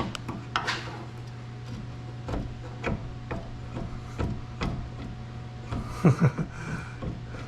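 A steel pry bar levering against a truck's lower control arm to check the bushings for play: scattered knocks and clunks, the loudest pair a little after six seconds in, over a steady low hum. The bushing proves slightly worn.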